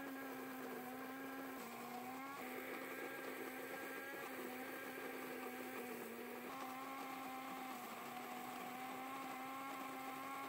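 Electric burr coffee grinder running steadily as it grinds coffee beans, a motor hum whose pitch dips briefly a few times.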